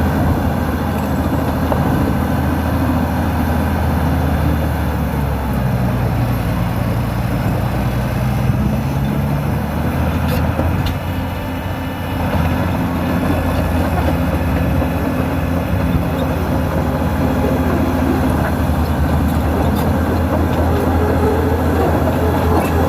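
Diesel engine of a New Holland crawler dozer running steadily under load as it cuts and levels ground. Its note shifts about five seconds in and again around twelve seconds, with a brief dip in loudness just before the second shift.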